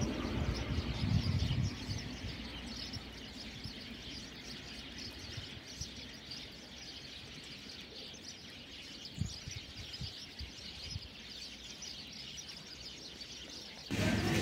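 Small birds chirping and twittering in the trees, a steady chatter of many thin high calls. A low rumble fades out during the first couple of seconds.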